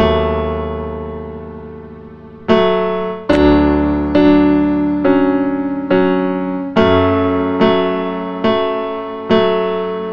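Background piano music: a slow run of chords, struck about once a second after a pause, each left to ring and fade.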